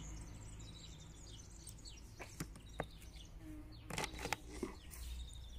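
Quiet outdoor background with a few soft clicks and knocks as a large hardback cookbook is handled and set down beside a plastic crate. The clicks cluster about four seconds in.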